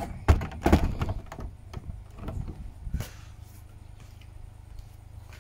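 A few dull knocks and thumps, the two loudest close together near the start and weaker ones about three seconds in, followed by a steady low hum.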